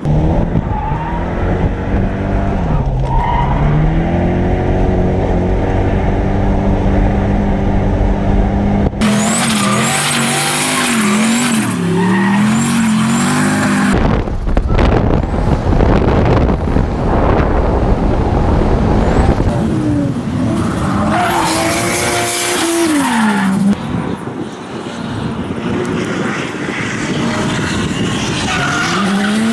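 Drift cars sliding on a track: engines revving up and down as the drivers work the throttle through the slide, with tyres squealing. The sound changes abruptly a few times as it switches from one car to another.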